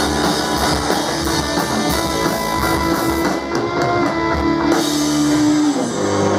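Live rock band, with electric guitar, drum kit and keyboard, playing the closing bars of a song. The cymbals drop out about three-quarters of the way through, leaving held notes, one of which slides down in pitch near the end.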